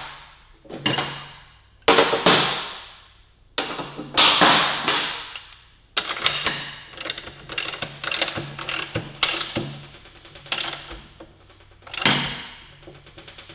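Socket ratchet clicking in runs as a motorcycle rear axle nut is tightened, with several louder metallic clanks that ring out.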